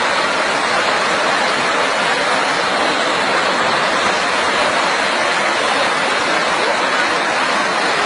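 Steady, loud rush of fast-flowing floodwater churning through a torrent.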